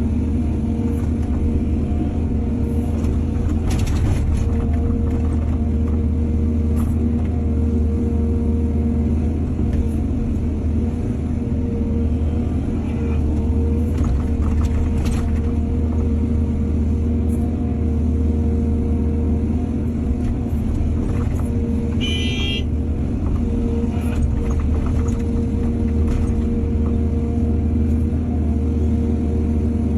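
Hydraulic excavator's diesel engine running steadily under load, with a few scattered knocks and one brief high-pitched squeal about two-thirds of the way through.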